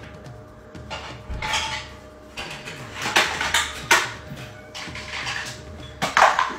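Plastic dishes clattering and knocking together as they are handled and stacked, in several separate clatters with the loudest about three, four and six seconds in.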